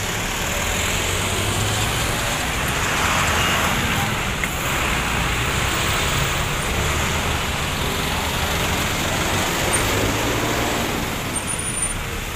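Steady road traffic noise, with the low hum of vehicle engines running and rising and falling a little.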